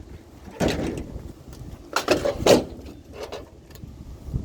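Several short clunks and rattles of junk being picked up and moved about, with a steady low rumble underneath.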